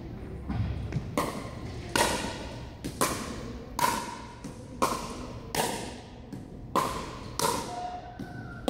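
Pickleball rally: paddles striking a plastic pickleball back and forth, with the ball also bouncing on a hardwood floor, giving about nine sharp knocks spaced roughly a second apart, each ringing briefly in the echoing hall.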